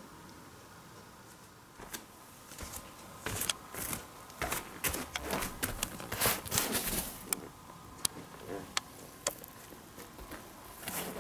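Handling noise from a handheld camera: irregular rustles and sharp clicks, thickest in the middle few seconds and sparser towards the end.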